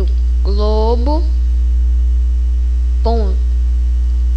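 Loud, steady electrical mains hum, a low drone that never changes, with a faint steady higher tone over it. A voice speaks briefly twice over the hum.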